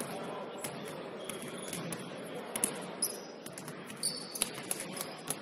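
Basketball game play on an indoor court: the ball bouncing and irregular sharp knocks, with a couple of brief high sneaker squeaks about three and four seconds in, over the steady background noise of the hall.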